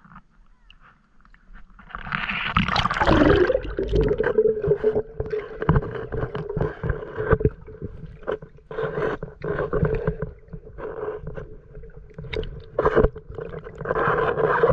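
Camera going under the water of a shallow canal about two seconds in, with a rush of bubbles and water noise. After that comes muffled underwater sound: a steady hum with many clicks and knocks, swelling now and then as the swimmer moves.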